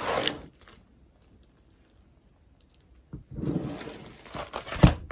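Packaging being handled during an unboxing: rustling and shuffling in two short spells with a near-silent gap between, ending with a sharp tap about five seconds in.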